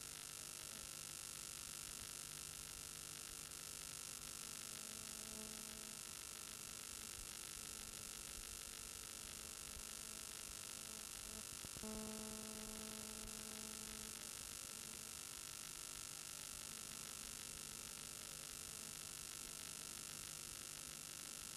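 Faint steady mains hum and hiss, with a brief faint tone about twelve seconds in.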